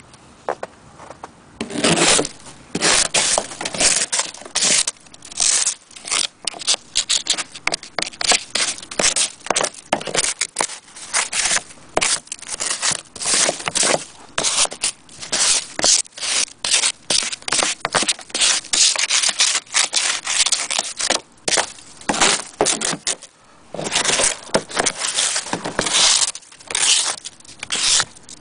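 Snow being scraped and swept off a car windscreen in quick, irregular rasping strokes, with a short pause about three quarters of the way through.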